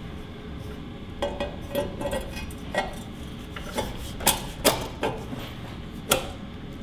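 Metal clinks and knocks of an exhaust manifold being handled and fitted against the cylinder head: about a dozen sharp, irregular taps starting about a second in, the loudest a pair around four and a half seconds.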